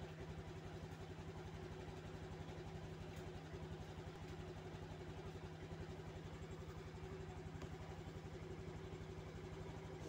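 Honda fuel-injected motorbike engine idling steadily with an even, rapid pulsing beat, a sound the owner likens to a Fuso truck building up air pressure before moving off.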